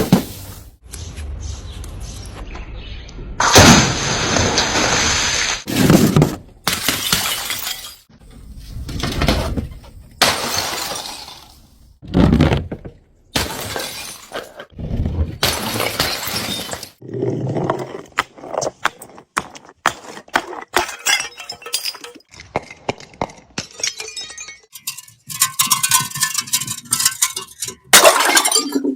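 Glass bottles smashing one after another: repeated sudden crashes of breaking glass, some followed by tinkling shards, with short gaps between them.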